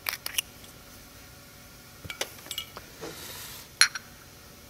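Glass bottle's screw cap clicking as it is twisted open and handled, with a short hiss about three seconds in and one sharp, ringing clink near the end.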